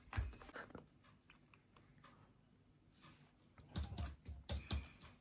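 A few soft taps and thumps right at the start, then near silence, then a quick cluster of about half a dozen short taps and thumps about four seconds in.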